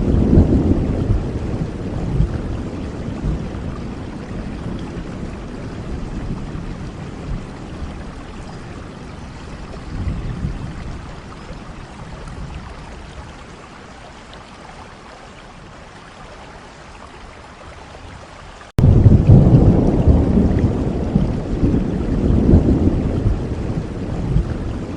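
Steady rain with rolling thunder. A low rumble at the start slowly dies away, then a loud new rumble of thunder starts suddenly about three quarters of the way through and carries on to the end.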